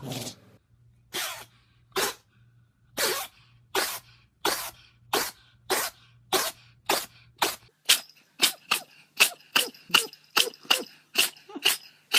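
An animal sneezing over and over in a long run of short, sharp sneezes that speed up steadily, reaching about three a second.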